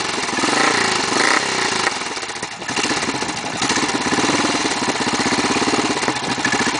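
BSA B50's 500 cc single-cylinder four-stroke engine running at a fast idle after a first start in seven months. The revs rise briefly about a second in, then dip about two and a half seconds in before picking up again.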